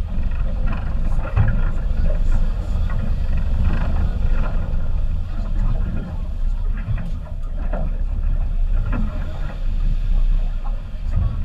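A boat's engine holding at low speed as a steady low rumble, mixed with wind on the microphone, with faint, scattered voices.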